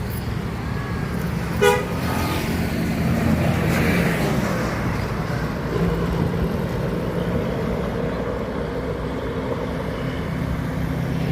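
A brief toot of a tour bus's multi-tone 'telolet' horn about two seconds in, over the steady running of bus engines as the buses pass.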